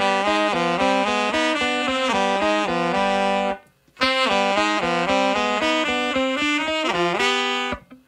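Saxophone playing a melodic phrase of short stepping notes, breaking off briefly at the halfway point and then playing a similar phrase again, in a post-punk band recording.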